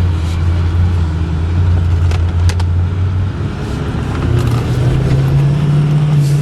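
A Ford F-450's 6.4-litre Power Stroke V8 diesel heard from inside the cab while driving, with road noise. The engine holds a steady low note, then climbs in pitch from about four seconds in as the truck accelerates. Two brief clicks come about two seconds in.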